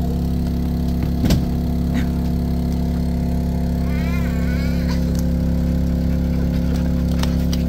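An engine running at a steady idle, even and unchanging, with a short knock about a second in.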